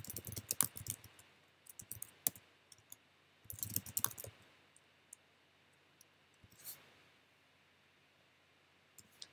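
Computer keyboard typing: quick keystroke clicks in several short bursts through the first few seconds, with a last one or two keys about seven seconds in.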